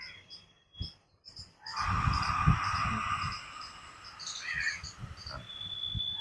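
A long breath pushed out through the throat with the mouth open, a breathy 'haa' exhale of beginner's ujjayi pranayama. It starts about two seconds in and lasts about a second and a half before fading.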